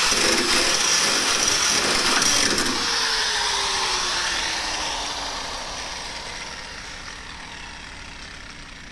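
Angle grinder with a cut-off disc cutting through the truck's sheet-metal side wall for about the first three seconds, then released and spinning down, its pitch falling slowly as it fades.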